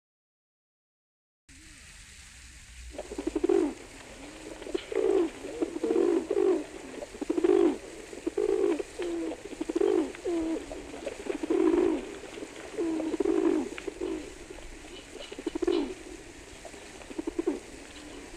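Pigeon cooing: a run of low, repeated coos, roughly one a second, over a steady hiss. It starts after about a second and a half of dead silence and thins out near the end.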